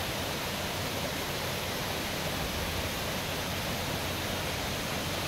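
Steady rush of water cascading down a rocky forest stream.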